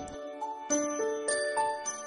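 Background music: a light, chiming melody of single notes, one after another, each struck sharply and left ringing.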